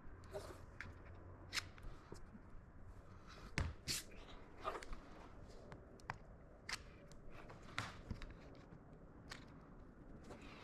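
Scattered light clicks, taps and rustles of hands handling small parts and materials, quiet between strokes.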